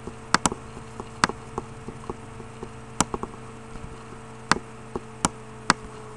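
Computer mouse clicking, sharp irregular clicks, some in quick pairs like a button press and release, over a steady low electrical hum.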